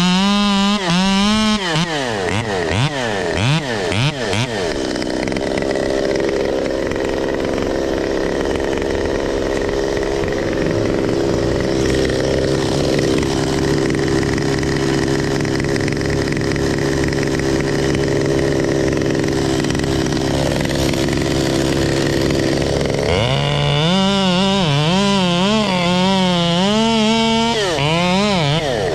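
Chainsaw at full throttle, its pitch wavering up and down as it cuts, for the first couple of seconds and again near the end. In between, an engine runs at a steady, lower pitch.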